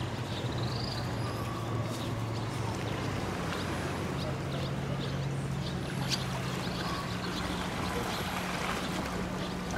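Harbour ambience: a steady low hum of a boat motor, with birds chirping now and then and faint voices.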